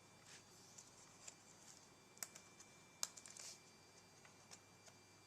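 Faint plastic clicks and a short scrape from a Samsung N145 netbook's keyboard being worked loose from its case. Two sharper clicks come about two and three seconds in, and a brief scrape follows the second.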